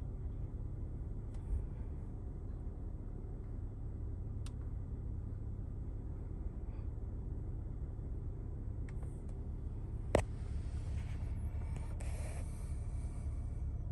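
Steady low cabin hum of a Mercedes GLE 350 idling in park, with a few light taps of a fingertip on the touchscreen. A sharp click about ten seconds in is followed by a couple of seconds of rustling handling noise.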